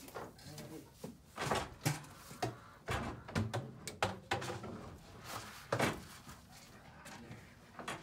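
A series of irregular knocks and clatters from plastic feed barrels being opened and handled, with a few louder bangs.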